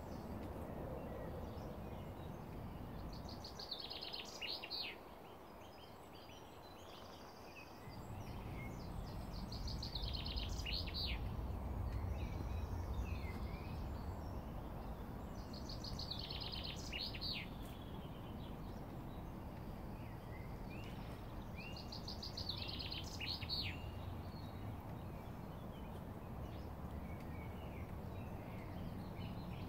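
A small songbird singing a short, rapid phrase of high notes, repeated about every six seconds, over a steady low outdoor rumble.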